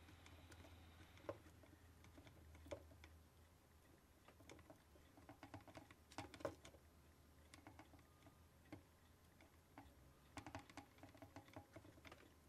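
Near silence with faint, scattered light clicks, bunched twice in short runs, of metal tweezers working against a surface-mount aluminium electrolytic capacitor and circuit board as it is wiggled loose.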